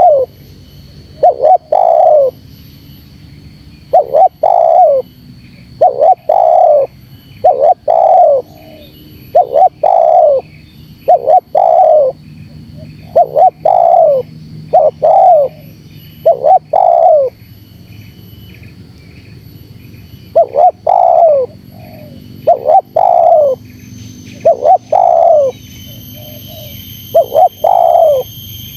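Spotted dove (terkukur) cooing again and again, in groups of two or three notes that each slide down in pitch, with short pauses between groups.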